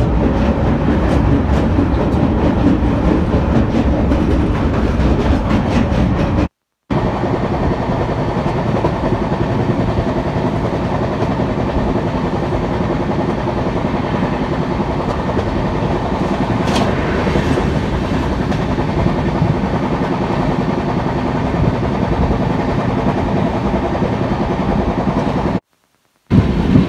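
A passenger train running at speed, heard from an open coach door: a steady rumble and clatter of the wheels on the rails. It breaks off twice, briefly, where the recording is cut.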